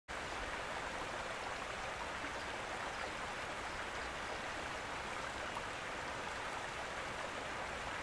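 Steady rush of running water from a stream.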